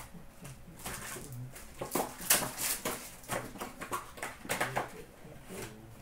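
Foil hockey card packs being torn open and handled, with wrappers crinkling and cards shuffled, in a run of short crackling rustles, loudest a little past two seconds in.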